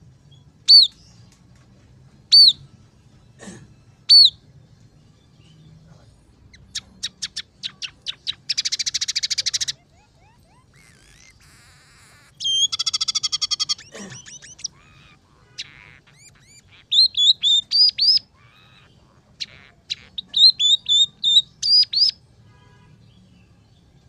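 Scaly-breasted munia singing. Three loud, arching high notes come about a second and a half apart, then a run of quickening ticks turns into a buzzing trill, a second buzzing trill follows, and quick chirps cluster near the end. The song is described as filled with borrowed notes of tree sparrow, red siskin and canary.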